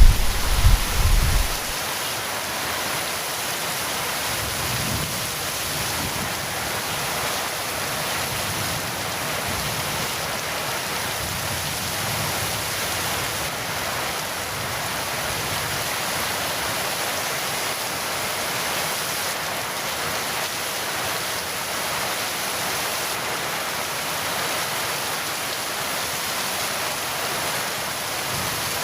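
Heavy rain falling steadily. A low rumble of thunder dies away in the first two seconds.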